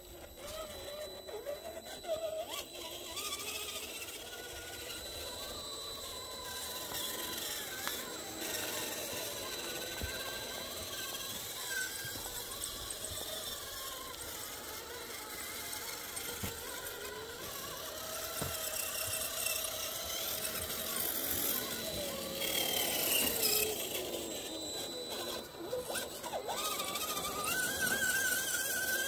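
Electric motors and geared drivetrains of radio-controlled crawler trucks whining as they crawl over rocks, the pitch wavering up and down with the throttle, over a thin steady high tone.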